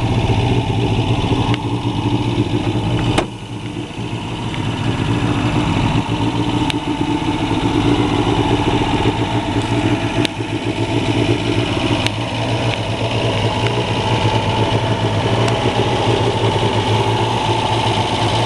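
1971 Fiat 125p 1500's four-cylinder engine idling steadily. A single sharp knock about three seconds in.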